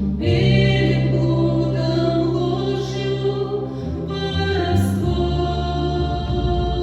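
A choir singing a Christian song in long held notes over a steady low accompaniment, with new phrases entering near the start and again about five seconds in.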